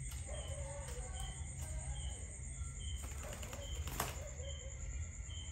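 A dove's wings beating in a quick flurry as it lifts off, ending in a sharp wing clap about four seconds in.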